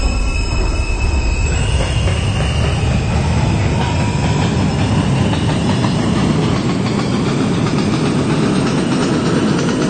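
Subway train running past at speed. A few high whining tones fade out in the first couple of seconds, then a steady, loud noise of wheels on track.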